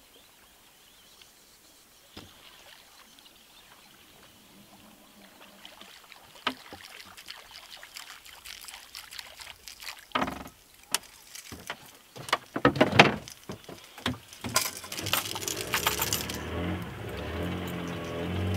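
Clicks and knocks of fishing tackle handled in a small wooden boat, faint at first and getting busier from about six seconds in, with a cluster of sharp knocks a little before the end. Background music comes in near the end.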